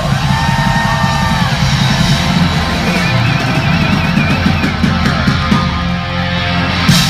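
Live rock band playing loud: distorted electric guitars and drums, with a wavering high guitar note in the middle and a sharp crash near the end.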